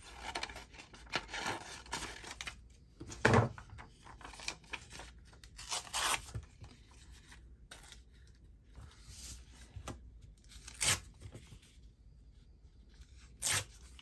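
Paper being cut by hand with scissors and handled: scratchy rustling and snipping, broken by a few sharp taps, the loudest about three seconds in and again near the end.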